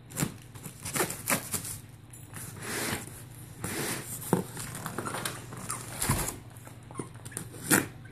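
Large cardboard shipping box being handled and turned on a tabletop: scattered knocks and taps, with stretches of cardboard scraping as it slides, and one sharper knock near the end. A steady low hum runs underneath.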